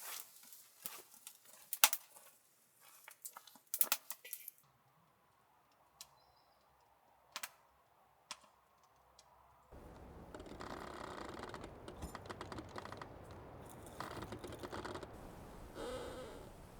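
Wood fire crackling with sharp pops, sparser and quieter for a few seconds in the middle. From about ten seconds in it gives way to a steadier hiss of burning with fine crackles.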